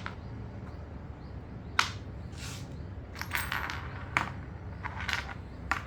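Small metal kit parts (bearings and differential gears) clicking and clinking as they are handled and set down, three sharp clicks with brief rustling handling noise between them.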